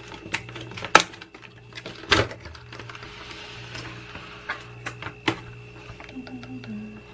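Round clear plastic meal-kit container being unsealed and opened: sharp clicks and snaps of the rigid plastic lid, the loudest about one and two seconds in, with plastic rustling between.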